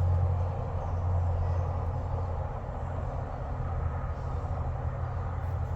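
Steady low hum with a faint even background rush, easing slightly in the first second.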